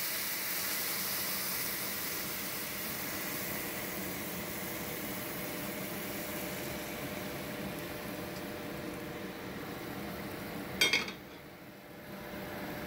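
Boiling water poured into a hot pot of butter-sautéed rice and vegetables, sizzling and bubbling steadily. About eleven seconds in there is one sharp, brief clink, the loudest moment, after which the sizzle drops for a moment before the simmering hiss returns.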